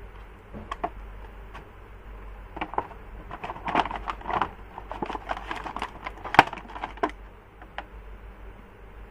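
Hard plastic toy parts being handled: irregular clicks, taps and knocks, crowded together in the middle, with one sharper knock about six seconds in.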